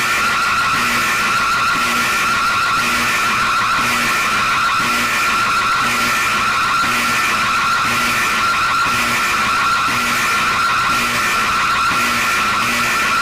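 Mock emergency alert alarm: a loud, unbroken, noisy alarm tone at a constant level, with a faint low beep repeating about once a second beneath it.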